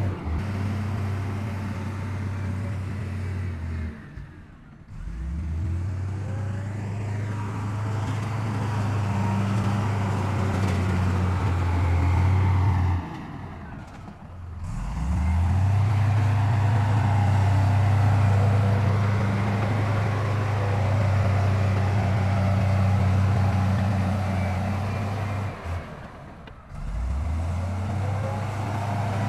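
Heavy diesel construction machinery running, a steady low engine drone. Three times it drops away briefly and comes back with a rising pitch.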